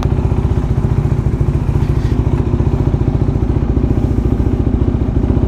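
KTM Duke motorcycle engine idling steadily with a fast, even pulse, heard from the helmet-mounted microphone.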